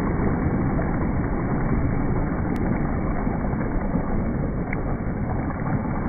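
Small waves washing onto a shore, mixed with wind buffeting the microphone: a steady rushing noise, heaviest in the low end.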